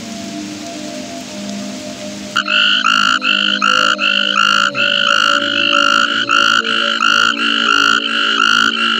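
A frog calling, starting about two and a half seconds in: a fast, even series of short, loud croaks, about three a second. Before the calls start there is only a steady hiss.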